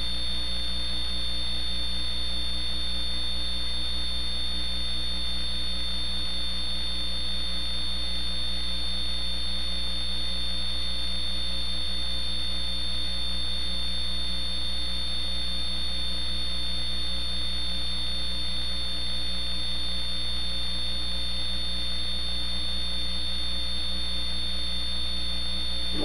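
Steady electrical mains hum with a thin, high whine over it, unchanging, with no other sound.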